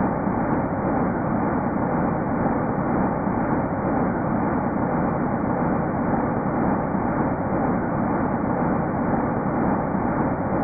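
Sonification of the early universe's sound waves, made from ESA Planck maps of the cosmic microwave background: a steady, low, rumbling hum.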